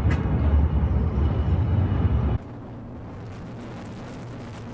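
Loud low rumble that cuts off abruptly about two and a half seconds in. It gives way to a quieter steady rumble with a faint hum inside the Soudan Mine's hoist cage as it rides down the shaft.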